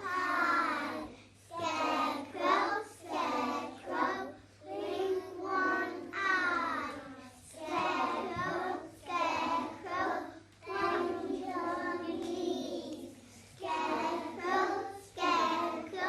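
Young children singing together without accompaniment, in short phrases with brief pauses for breath.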